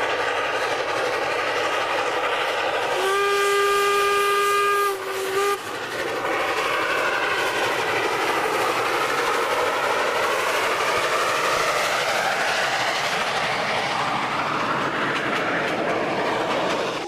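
Steam locomotive hauling passenger carriages past, running steadily with wheel and rail noise. About three seconds in, its whistle gives one long blast of about two seconds, then a short toot.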